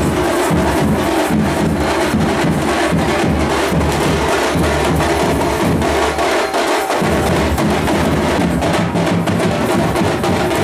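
Loud music driven by steady, dense drumming and percussion.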